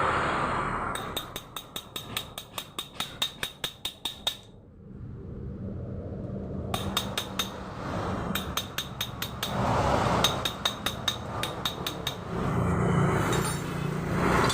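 Rapid, evenly spaced metallic clicks from hand tools working on a Yamaha Vega ZR motorcycle engine, in two runs of a few seconds each, over a low hum.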